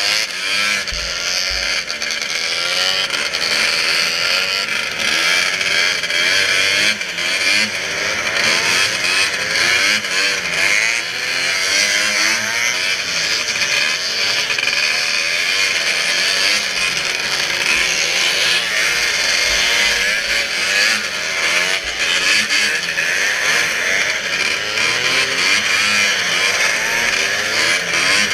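Snowmobile engine running hard at race speed, its pitch wavering up and down with the throttle over a steady, loud hiss.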